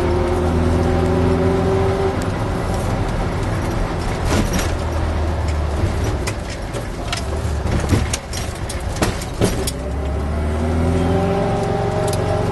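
VW T2 bus's air-cooled flat-four engine with a stainless single quiet-pack exhaust, heard from inside the cab. It pulls with a slowly rising drone, eases off for several seconds with a few sharp knocks and rattles, then picks up again with a rising drone about ten seconds in.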